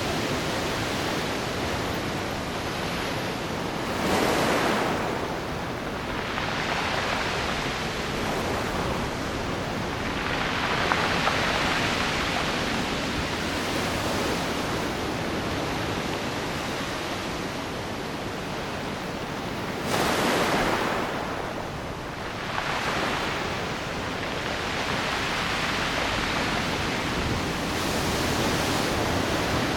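Ocean surf rushing continuously on the shore, swelling and easing in waves, with two louder breaks about 4 seconds in and about 20 seconds in.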